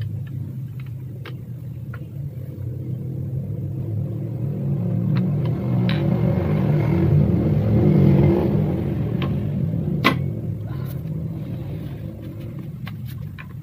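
A vehicle's engine rumble that swells to its loudest a little past the middle and then fades, as it passes by. Over it come several sharp clinks and knocks of the steel weight-bench tubes and parts being fitted together, the strongest one about ten seconds in.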